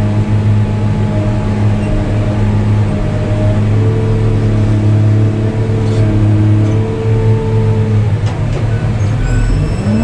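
New Holland RG140B motor grader's diesel engine running steadily, rising in pitch near the end as it revs up.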